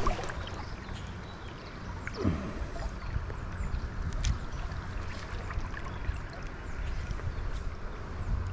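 Shallow river water flowing steadily, a continuous rushing and gurgling.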